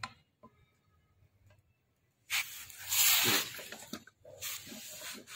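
Manual gearbox gear shafts being worked down into the aluminium gearbox case: a few faint metal clicks, then two hissing scrapes as gears and case rub, the first longer, the second short near the end.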